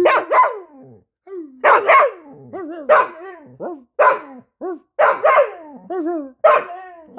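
A dog barking, sharp barks about once a second, each trailing off into a wavering, falling howl-like whine.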